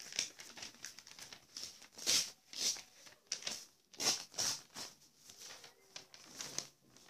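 A sheet of paper rustling and crackling in short, irregular swishes as it is handled and shaken.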